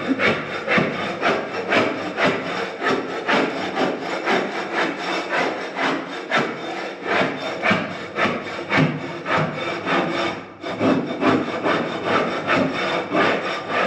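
Rhythmic rasping strokes on wood, about two to three a second, steady throughout.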